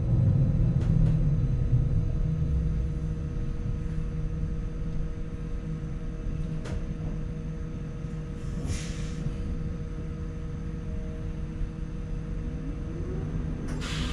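Interior of a New Flyer E40LFR electric trolleybus standing nearly still: a low rumble with several steady electrical hums and whines from the onboard equipment. A brief air hiss comes about nine seconds in, and near the end a short rising whine and a louder hiss as the bus gets ready to move off.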